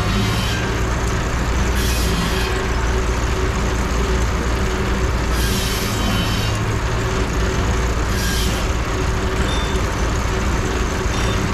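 Steam engine driving a sawmill, running steadily with a constant low drone, and short bursts of hiss every few seconds.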